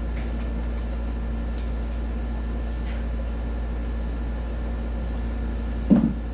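A steady low mechanical hum, like a motor or fan running, with a few faint light clicks and one short thump near the end.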